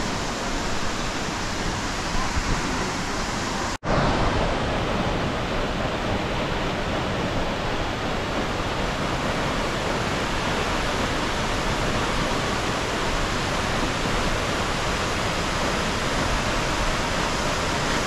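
Steady rushing roar of a tall waterfall and its rocky river. It cuts out for an instant about four seconds in, then resumes slightly louder.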